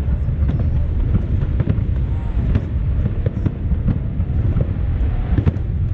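Fireworks going off in quick succession: a continuous low rumble of booms with many sharp cracks and pops throughout.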